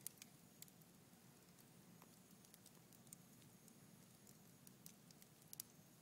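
Red oak logs burning in a wood fireplace, crackling faintly with scattered sharp pops, a few close together near the end.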